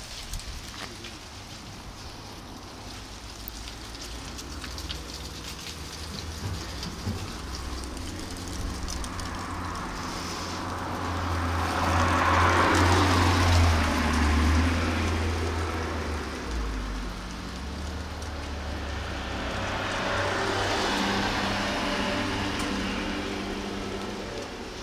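A motor vehicle passing close by, its engine hum and tyre noise swelling and fading, then a second, smaller pass near the end.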